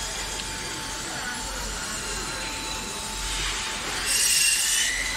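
Steady hiss with faint steady hum tones, and a louder burst of high hissing lasting about a second, about four seconds in.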